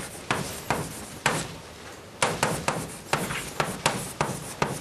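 Chalk writing on a blackboard: a quick, irregular run of sharp taps and short scrapes as letters are written.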